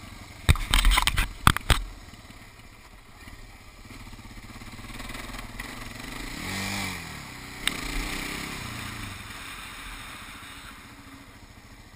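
Suzuki ATV engine running at low speed, with a burst of loud knocks and rattles in the first two seconds. Past the middle the engine revs up twice and falls back.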